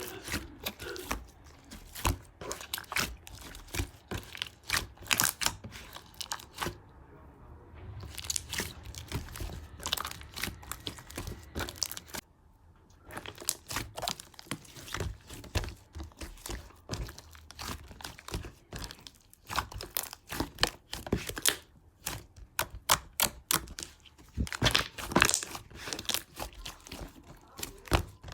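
Ice cream packaging crinkling and tearing as it is handled, a dense run of irregular crackles with a short lull about twelve seconds in.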